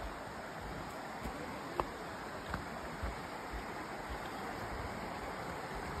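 Steady rushing of a stream running beside the trail, with a few soft footsteps on the dirt path.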